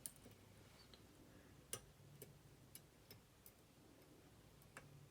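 Faint, irregular metallic clicks of a lock pick tapping the pin stacks of a Tevlaphee Haodele steering-wheel lock held under heavy tension, about seven in all, the sharpest a little under two seconds in. The pins, which the picker takes for tapered, need repeated taps to set.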